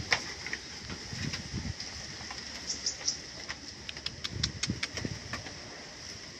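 Young Etawa goats eating banana from a hand at a bamboo pen: soft low knocks and chewing, with a quick run of short, high ticks in the second half.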